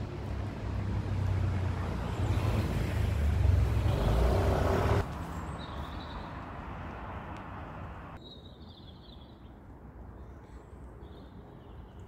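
A road vehicle passing close by, a low rumble with rising noise that builds for about five seconds and cuts off suddenly. Afterwards quieter traffic hum, with short bird chirps in the second half.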